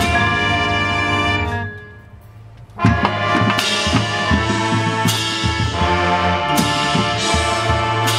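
High school marching band's brass section playing a held chord that dies away about one and a half seconds in. After a short pause the full band comes back in loud, with sharp percussion hits every second or so.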